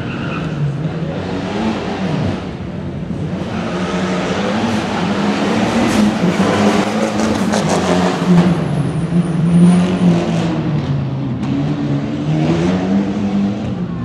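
Rally car engine revving hard, its note rising and falling again and again. It grows louder to a peak about nine or ten seconds in, then fades.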